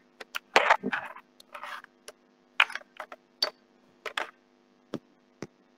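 Irregular clicks and short rustling scrapes, about a dozen scattered through the pause, over a faint steady hum, picked up by a video-call microphone.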